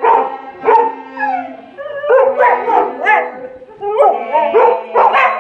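Several dogs howling, yipping and barking together in a string of short pitched calls that rise and fall, the dogs 'singing' along.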